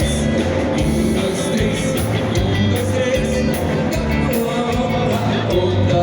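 Music with singing and a steady beat, played loud.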